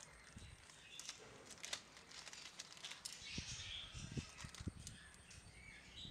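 A small plastic bag of screws rustling and crinkling as it is handled and tiny screws are tipped out, with light clicks and soft handling thumps, busiest a little past halfway.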